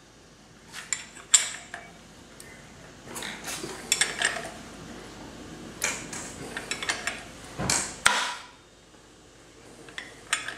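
Irregular metallic clinks, clicks and knocks of hand tools as a Porsche GT3 engine is turned over by hand to check its cam timing, with the sharpest knocks about a second in and about eight seconds in.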